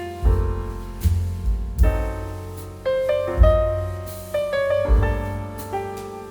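Background piano music: struck chords that ring and fade, over a low bass note played about once a second.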